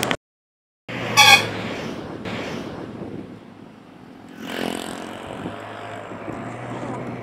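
Motorbike riding along a highway: steady engine and road noise. The sound cuts out for about half a second at the start; then a vehicle horn gives one short, loud toot about a second in, and a passing vehicle's engine swells up briefly around four and a half seconds in.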